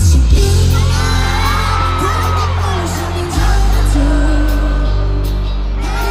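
Live pop band and singing played through a stadium sound system. The full band comes in with a sudden loud hit at the start, over a heavy, steady bass, with sung lines gliding above.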